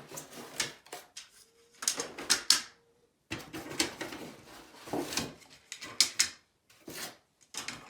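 Toy train track sections and packaging being handled, with a series of irregular knocks and clatters.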